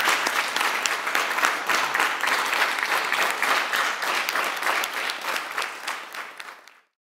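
Audience applauding, many hands clapping, fading out near the end.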